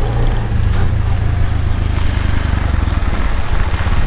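Auto-rickshaw (tuk-tuk) engine running steadily on the move, heard from the passenger seat with rushing wind and road rumble.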